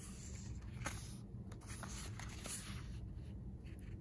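Pages of a paperback guidebook being turned and handled: soft paper rustles and a few light ticks over a low, steady room hum.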